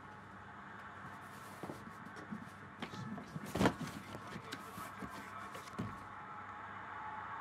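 Faint handling sounds in a quiet room: a cardboard box being moved and set down, with soft rustles and one sharper knock about three and a half seconds in, over a low steady background hum.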